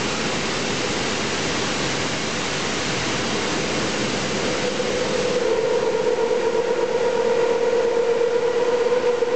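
Toshiba BTD-13R22 horizontal boring machine running, a steady mechanical noise. About five seconds in, a steady whine sets in over it and the sound grows a little louder.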